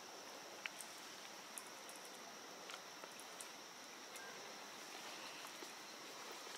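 Faint outdoor forest ambience: a steady, even high insect drone, with a few small crackles of dry leaves scattered through.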